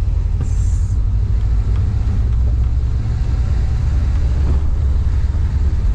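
Cabin noise of a VW Kombi on the move: a steady, low engine and road rumble, with a brief hiss about half a second in.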